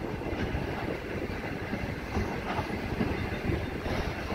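Freight train hopper wagons rolling past close by: a steady low rumble of wheels on rail, with irregular clunks and clacks as the wheels cross the rail joints.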